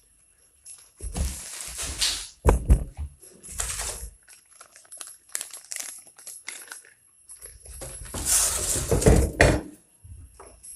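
Unpacking noise: polystyrene foam packing and cardboard being pulled, rubbed and knocked, in irregular bursts of rustling and scraping with a few sharp knocks. The longest and loudest stretch comes about eight to nine and a half seconds in.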